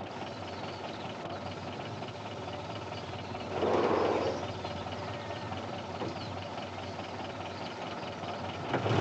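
Steady low hiss with a short muffled sob from a young woman about four seconds in.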